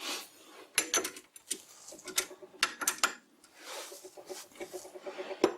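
Irregular metal clicks, knocks and light scraping as the parts of a bench lathe and an aluminium workpiece are handled and adjusted.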